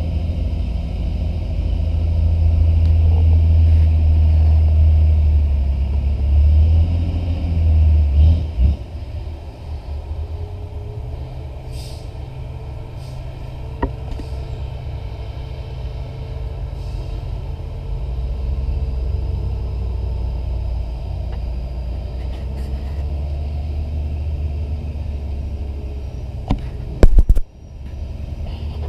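Hino dump truck's diesel engine pulling up a dirt haul-road slope: a low rumble, loud for the first eight or nine seconds, then softer and steady. Two sharp, loud knocks near the end.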